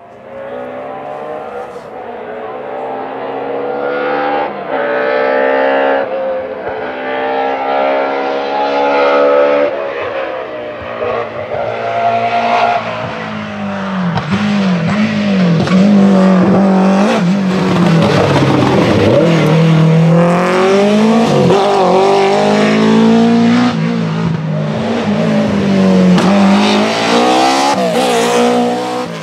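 BMW rally car engines under hard acceleration, the pitch climbing and dropping back again and again as they rev and change gear, getting louder about halfway through.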